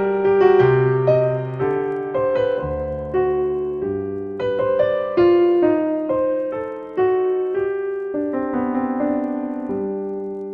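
Background piano music: a slow, gentle melody of single struck notes that ring and fade, over lower held notes.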